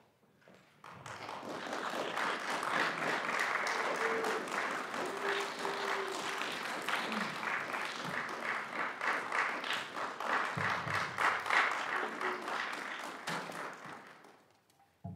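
Audience applauding in a concert hall: the clapping starts about a second in, holds steady, and dies away near the end.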